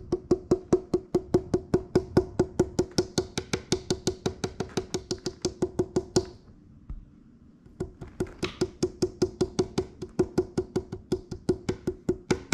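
Fingers tapping quickly and evenly on the top of a Harley Benton HB-35 Plus semi-hollow guitar, about six taps a second, each ringing at the same pitch. The taps pause for about a second and a half past the middle, then resume. This is a tap test along the top to hear where it has lifted and is not glued to the center block.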